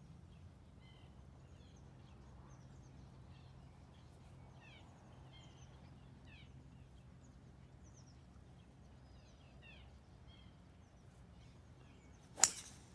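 Birds chirping over a faint low steady hum, then near the end a single sharp crack as a golf club strikes the ball off the fairway grass.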